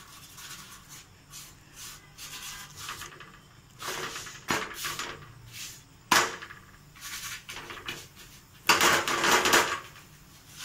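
Silicone brush rubbing oil over a flatbread on a non-stick tawa, with scattered brushing strokes, a sharp knock about six seconds in as the bread is flipped, and a louder second-long rubbing rush near the end.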